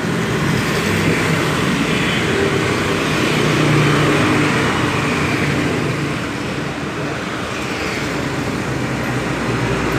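Steady engine noise that swells about four seconds in and eases off again a few seconds later.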